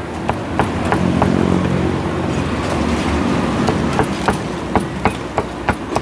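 Cleaver chopping fried beef on a wooden cutting board: sharp, irregular knocks, about two or three a second, over a steady market din, with a low hum swelling and fading about a second in.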